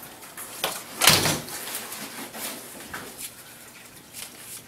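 A single loud thump about a second in, with lighter clicks and knocks scattered around it.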